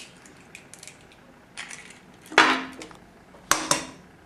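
Eggs knocked against the rim of a stainless steel pot to crack them: sharp knocks with a brief metallic ring. The loudest comes about two and a half seconds in, two more follow close together near the end, and faint crackles of shell come between.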